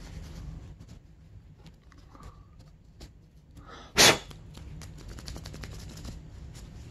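A person sneezes once, loudly, about four seconds in, with a short intake just before. Around it, faint rustling and small clicks of a rag wiping a metal fitting.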